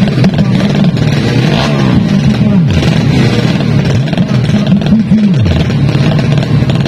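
Four-stroke 200 cc underbone drag bike engines revving at the start line, blipped up and down again and again so the pitch keeps rising and falling, without launching.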